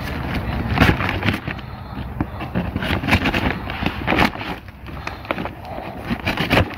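A bag of corn-cob barbecue fuel being ripped open by hand, its string closure tearing out while the bag crackles and rustles with many sharp, irregular snaps.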